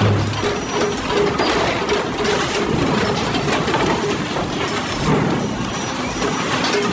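Heavy machinery running, a steady loud mechanical clatter with a short pulsing tone repeating about three times a second.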